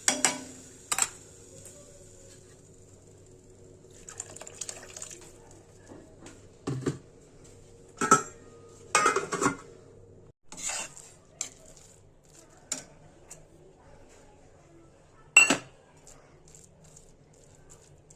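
Cooking utensils clinking and knocking against a pan in scattered single strikes and short clusters. A faint sizzle fades out in the first two seconds.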